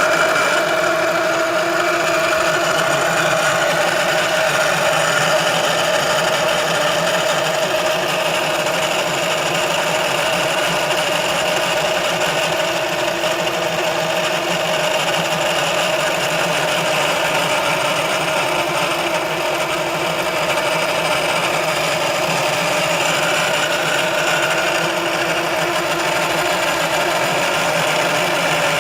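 Steady mechanical running noise from a Ford Focus, a hum with a whine made of several steady tones that waver slightly in pitch. This is the abnormal noise the owner puts down to the transmission control module (TCM).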